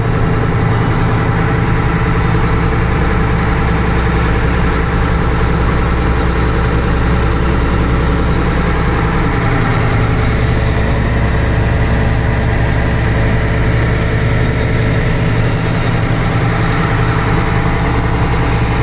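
Diesel engine of a truck-mounted concrete pump running steadily at raised revs, with the PTO engaged to drive the pump's hydraulics for raising the boom.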